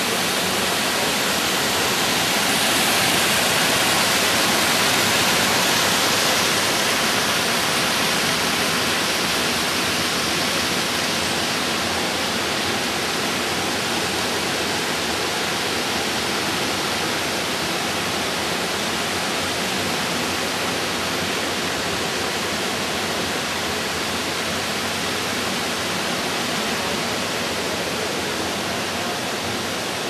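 Steady rush of a gorge stream cascading over layered rock ledges, a little louder a few seconds in.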